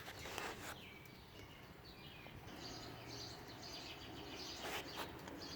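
Quiet outdoor background with faint distant birds chirping and a few soft clicks.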